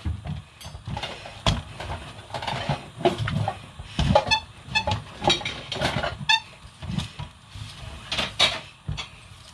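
Kitchen clatter: irregular knocks and clicks of utensils and cookware, with a few short ringing clinks about four to six seconds in.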